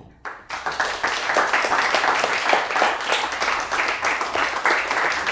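Small studio audience applauding: a dense patter of many hands clapping that starts about half a second in, just after the lecturer's last words.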